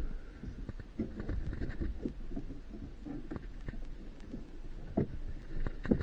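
Irregular small knocks, clicks and rustles of hand work on plastic dash parts and wiring, with a couple of sharper knocks near the end.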